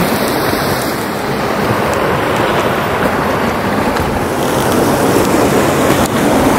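Steady loud rushing of a fast-flowing mountain stream, with wind buffeting the microphone.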